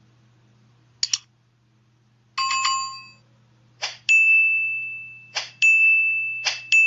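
End-screen sound effects: a short click about a second in and a chime of several tones, then three more clicks, each followed by a single bright bell ding that rings and fades slowly, the notification-bell sound of the subscribe animation.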